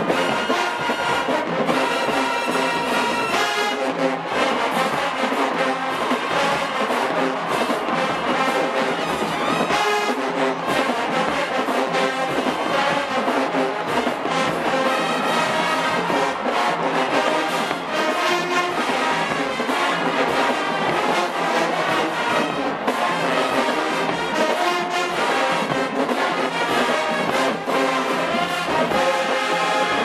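Marching band playing live, with massed brass horns and sousaphones over a steady drumline beat.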